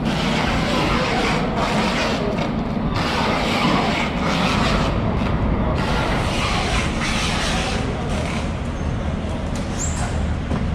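Loud, steady background noise with a heavy low rumble and no distinct events.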